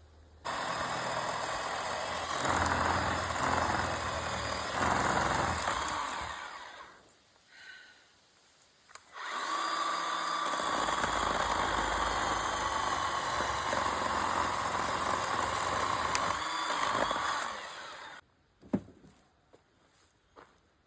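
Chainsaw running flat out, cutting into a dry fallen log, in two runs with a short break between them.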